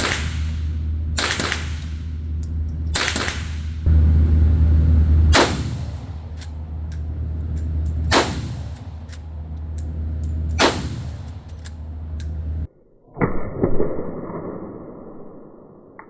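Rifle shots on an indoor range, .22 LR and .30-30 fired for comparison: a string of sharp cracks a second or two apart, with fainter cracks between them, over a steady low hum. Near the end the hum stops and a single further shot follows, leaving a long fading ring.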